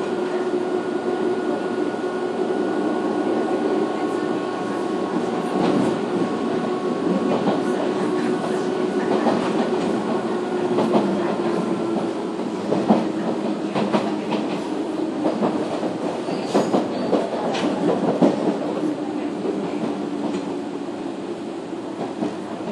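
Nishitetsu 313-series electric railcar running, heard inside the car above its motor bogie: a steady Cardan-drive motor and gear whine over the rumble of the wheels. Through the middle come clusters of sharp clicks as the wheels cross rail joints, and near the end the whine sags slightly in pitch and the sound eases off.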